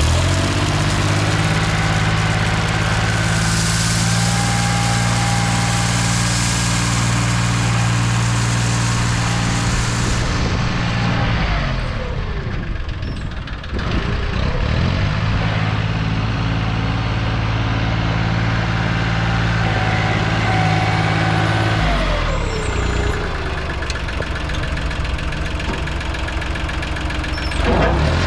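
International 275 compact tractor's engine running steadily under a front-end loader, its pitch falling twice, about twelve and twenty-two seconds in, and rising again near the end as the revs change.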